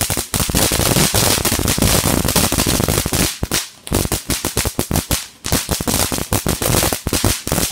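Ground fountain firework spraying sparks and crackling with a dense, rapid run of sharp pops, dropping off briefly twice, about three and a half and five and a half seconds in.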